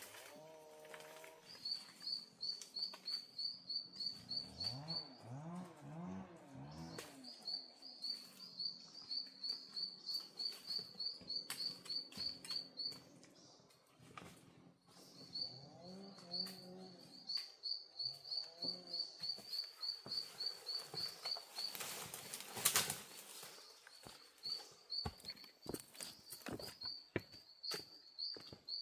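A bird calling in runs of rapid, high, evenly repeated chirps, each run lasting several seconds, with lower wavering animal calls twice and a sharp knock near the end.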